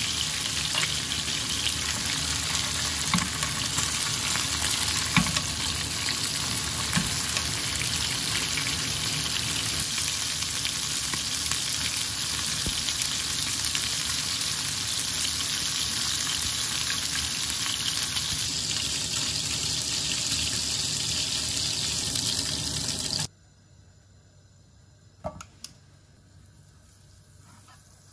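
Chicken thigh pieces frying in oil in a nonstick pan: a steady sizzle with a few light clicks. The sizzle cuts off suddenly about 23 seconds in, leaving a much quieter stretch with a couple of soft taps.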